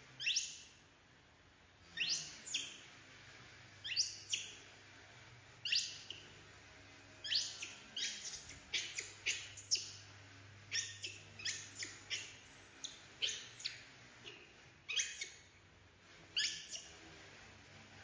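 Baby macaque giving repeated short, high-pitched squealing calls for its mother, spaced out at first and coming in quicker runs through the middle.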